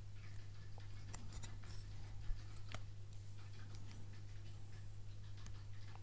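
Light clicks and taps of a smartphone and the metal parts of an aluminium bumper case being handled, with one sharper click a little past two seconds in, over a steady low hum.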